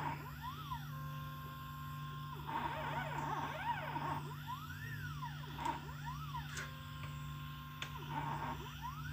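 Stepper motors of a small homemade CNC pen plotter whining as they move the pen along PCB traces. The pitch rises and falls in repeated arcs as each move speeds up and slows down, and holds steady during longer straight runs about a second in and again near seven seconds, over a constant low hum.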